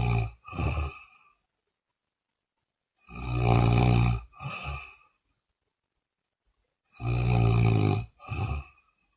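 A person snoring loudly. Each snore is a long rasping breath followed by a shorter second one, about every four seconds: one ends just after the start, and two more come about three and seven seconds in, with silence between.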